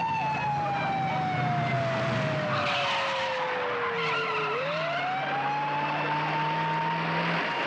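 Police car siren wailing over a car engine: the siren's tone falls slowly, then sweeps back up about halfway through and holds high. A stretch of rougher noise around the third second may be tyres on the road.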